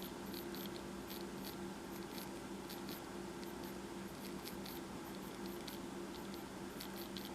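Pencil strokes scratching on paper: short, quick, uneven scrapes, a few a second, over a steady low hum.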